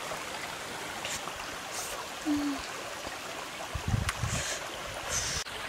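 Steady background rush of running water, with a cluster of soft low thumps about four seconds in.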